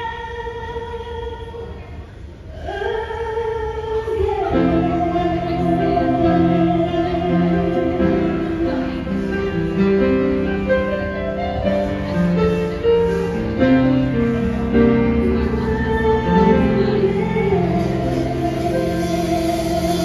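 Live band music: a woman sings long held notes over keyboard, drums and electric bass. A held note fades about two seconds in, and the fuller band with bass comes in a couple of seconds later.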